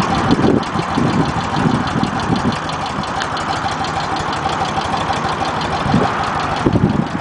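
BMW R75/6's air-cooled 745 cc flat-twin boxer engine idling steadily, with an even, fast firing pulse.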